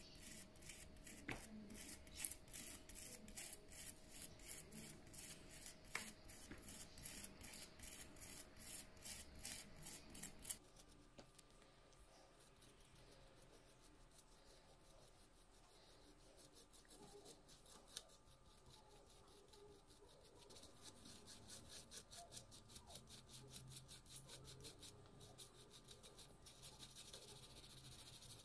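Cloth rubbing over the PS4 Pro's processor to wipe off the old thermal paste, in quick, even strokes about four a second. About ten seconds in the sound changes abruptly to softer, quieter rubbing.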